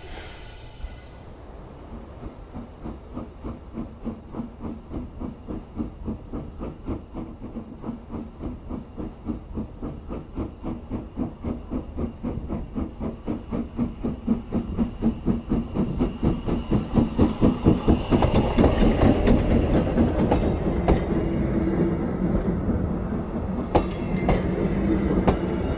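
Austerity 0-6-0 saddle tank steam locomotive working a train, its exhaust beating in a steady, even rhythm of a few chuffs a second that grows louder as it approaches. About two-thirds of the way through it gets louder still as the engine passes, and the coaches roll by with rail clicks near the end.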